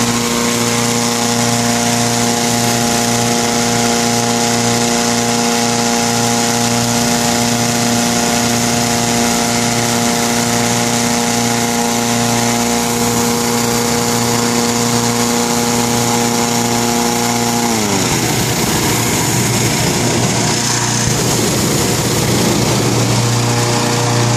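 Petrol-engined balloon inflator fan running flat out, a steady engine drone over the rush of air it blows into the balloon envelope. About three-quarters of the way through, the engine note drops and wavers, then steadies again near the end.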